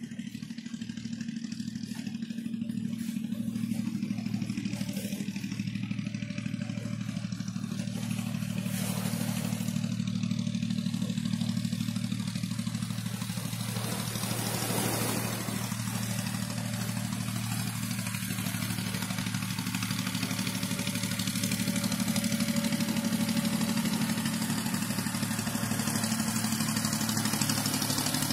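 Small fishing boat's engine running steadily at an even speed, with a brief rush of noise about halfway through.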